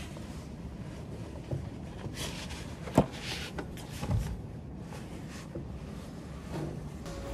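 Plastic iced-coffee cup with a dome lid being handled on a table: a few light rustles and taps, and one sharp knock about three seconds in, against low room noise.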